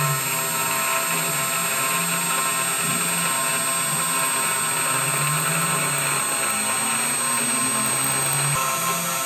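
CNC router spindle running with an end mill cutting a circular groove into an aluminum flat-bar plate: a steady high whine over a wavering lower hum.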